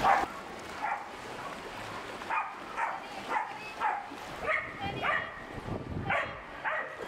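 A small dog barking: about ten short, high yaps spread out, one or two a second, after a brief louder noise at the very start.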